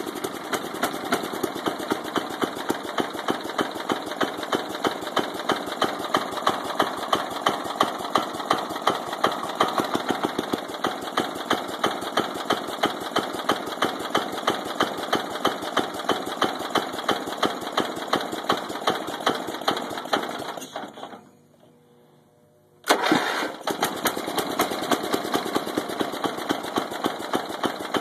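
1989 Murray lawn tractor's Briggs & Stratton engine running with a heavy, rhythmic knock, the sign of a bad connecting-rod bearing. About twenty seconds in it dies away and falls quiet, then about two seconds later it catches again suddenly and runs on, still knocking.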